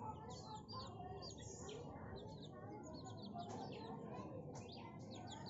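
Flock of chickens clucking, with many short high chirps overlapping in a continuous chatter.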